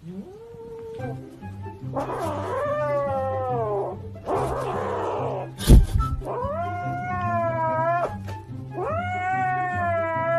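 A cat meowing in several long, drawn-out wails that bend in pitch, over background music with a steady low beat. A sharp thump comes about halfway through.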